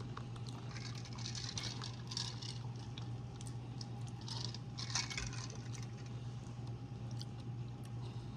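Popping candy crackling in a mouth: scattered faint crackles and snaps that come in clusters, over a steady low hum.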